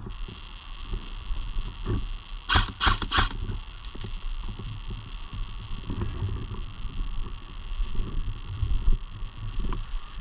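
Three quick airsoft gun shots, each a sharp crack, about a third of a second apart, over a steady low rumble on the microphone.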